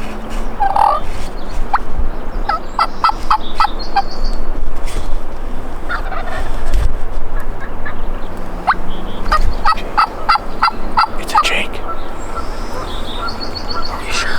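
Rio Grande wild turkeys calling: two runs of short, sharp notes, one about two and a half seconds in and another from about nine to eleven and a half seconds in.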